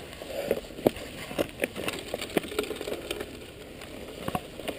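A mountain bike rolls slowly over loose gravel, its tyres crunching, with irregular clicks and rattles from the bike throughout.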